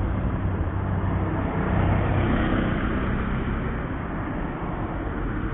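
Steady road traffic noise from vehicles going by. It swells a little about two seconds in and eases off toward the end.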